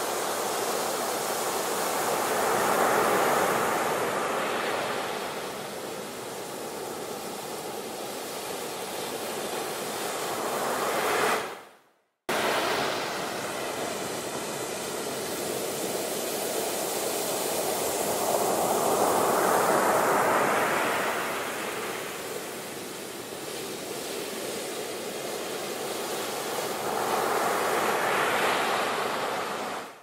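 Ocean surf: waves breaking and rushing onto the shore, the rushing swelling and ebbing every several seconds. The sound cuts out for a moment near the middle and fades out at the end.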